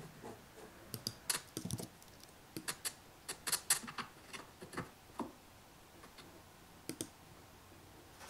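Computer keyboard and mouse being used: an irregular run of sharp taps and clicks for about four seconds, then a pair of clicks near the end.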